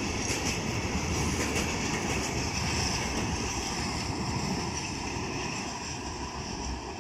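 Freight train of liquefied-gas tank wagons rolling past, steel wheels running on the rails with a steady rumble, a few clicks and a thin high-pitched ringing. The last wagon passes about four seconds in and the sound slowly fades as the train moves away.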